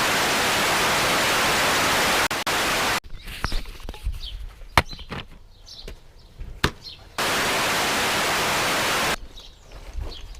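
Loud, even static hiss that starts and stops abruptly, lasting about three seconds, then a few seconds of quieter scattered clicks and knocks, then a second two-second stretch of the same static.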